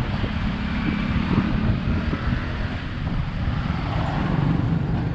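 Street traffic noise: motorbike and car engines running and passing, a steady low rumble without a break.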